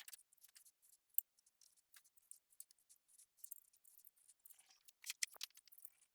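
Faint scattered metallic clicks and ticks of hand tools and a small bolt being fitted to an LS engine's oil pickup tube, with one sharp click about a second in and a short cluster of clicks near the end.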